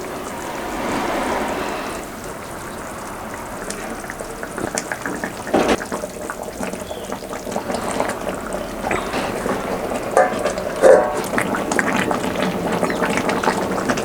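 Fish curry boiling in a pan: the liquid bubbles with many small pops, and a few sharper pops stand out from about five seconds in.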